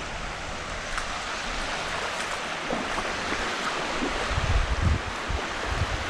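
Small surf breaking and washing in over shallow sand as a steady hiss, with wind buffeting the microphone in low gusts, strongest a little over four seconds in and again near the end.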